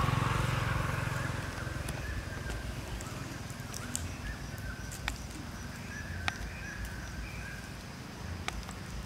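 A motorbike passing, loudest at the start and fading away over the first couple of seconds, then a steady outdoor background with a few sharp clicks.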